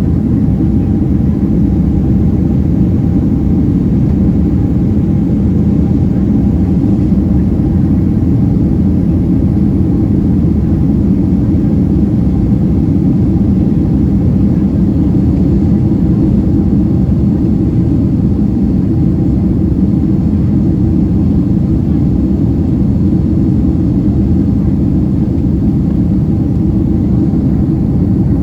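Steady rumble of a Boeing 767-300ER's engines and airflow heard from inside the passenger cabin, unchanging throughout, with a faint steady tone above the rumble.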